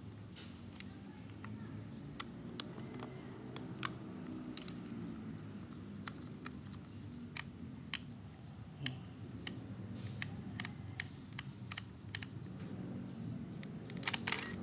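Canon EOS 5 film SLR's command dial being turned and its buttons pressed: a run of irregular, sharp plastic clicks. About a second before the end comes a short electronic beep from the camera.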